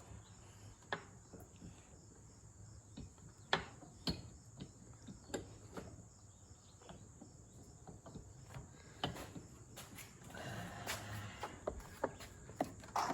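Scattered light clicks and knocks of hand tools and metal parts being handled during starter-motor installation, with a brief louder rustle about ten seconds in, over a steady high chirring of crickets.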